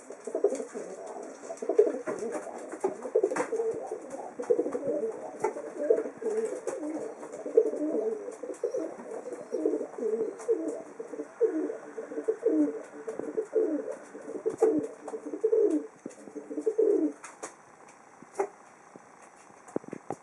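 Pigeon cooing in a long run of repeated low calls, broken by short, sharp sneezes. The cooing stops about three-quarters of the way through, leaving a few isolated sneezes.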